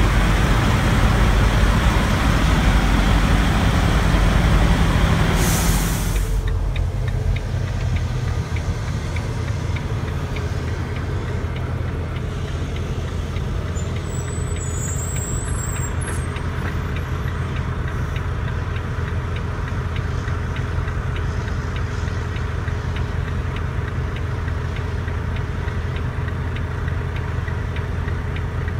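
Semi truck's diesel engine idling with a steady low hum. For the first several seconds a louder rushing noise lies over it, cutting off abruptly about six seconds in.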